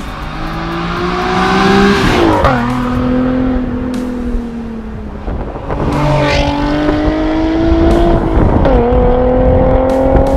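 Nissan 370Z's 3.7-litre V6 through a Cende aftermarket exhaust, driven hard. The engine note climbs, then drops sharply three times, about two and a half, six and a half and nine seconds in, and climbs again after each drop.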